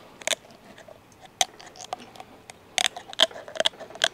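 Scissors snipping through a gar's bony, armour-like scales along its spine: a string of sharp, irregular clicks, coming closer together in the second half.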